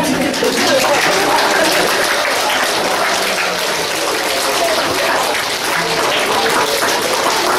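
Audience applauding in a hall, starting all at once and continuing steadily.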